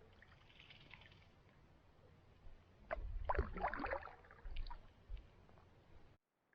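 Water splashing and sloshing around a canoe, with a louder burst of splashing and knocks about three seconds in, then a sudden cut-off near the end.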